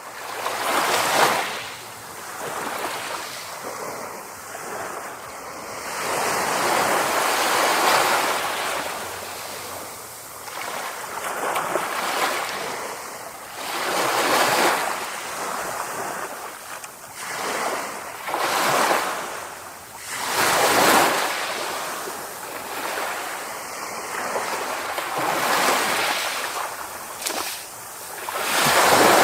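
Sea waves breaking and washing ashore, a rushing surge that swells and falls back every few seconds, with several louder breakers.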